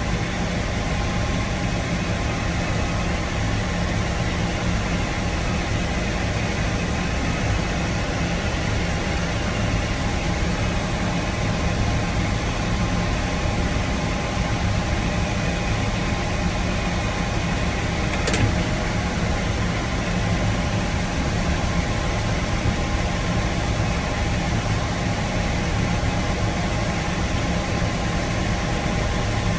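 Tractor engine running steadily while pulling a grain cart and powering its unloading auger during corn harvest, with a single sharp click about eighteen seconds in.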